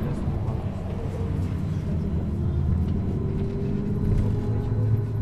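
2002 Van Hool AG 300 T articulated trolleybus running: a steady low rumble, with a faint tone rising slowly in pitch from about two seconds in.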